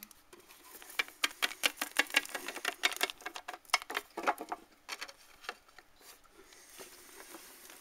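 Rapid clicking and tapping of small plastic toy figures being handled and knocked on a tabletop, running for about four seconds from about a second in, then dying away.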